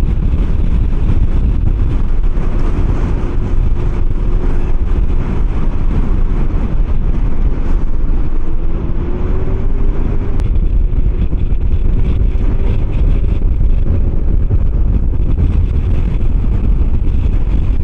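Kymco 125cc scooter being ridden at a steady speed, heavy wind rumble on the microphone over the engine's faint drone, which rises slightly in pitch about eight seconds in.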